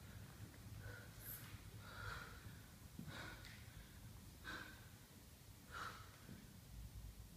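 Five faint, short breaths about a second apart from a dancer pausing between movements.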